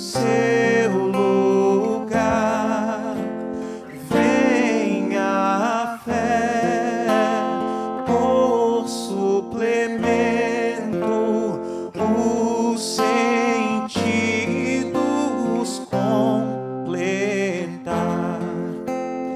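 A slow devotional hymn sung with vibrato over strummed acoustic guitar chords, a new chord roughly every two seconds.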